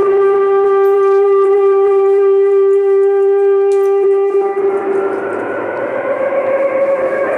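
Electronic drone from a patched modular synthesizer rig, holding one steady pitch with a clear stack of overtones. About four seconds in the clean overtones give way to a rougher, noisier texture.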